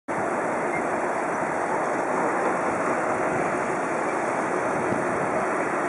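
Boeing 747 on final approach, its four turbofan engines giving a steady, even rushing noise that starts just as the picture opens.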